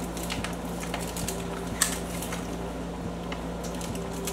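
Snack packaging being handled and opened, with small rustles and crinkles and one sharp click about two seconds in, over a steady low hum.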